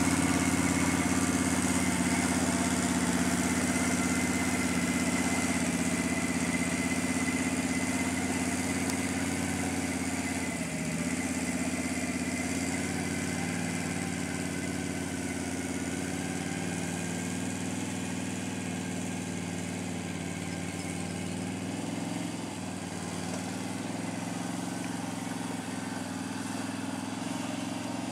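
Can-Am Outlander 650 Max quad's V-twin engine running steadily at low speed as the quad is driven slowly around on snow, the engine note fading gradually.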